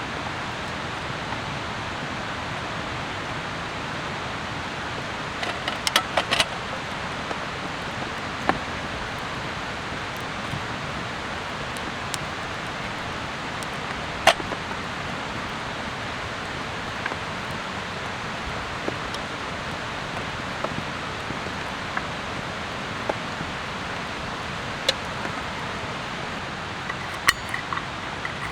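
Steady hiss of rain, with scattered sharp clicks and knocks: a small cluster about six seconds in, a loud single one about halfway, and more near the end.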